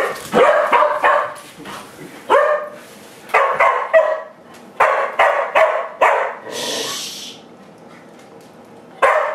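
A dog barking in quick, sharp runs, agitated barking at a broom being waved at it. A brief hiss follows, then a pause and one more bark near the end.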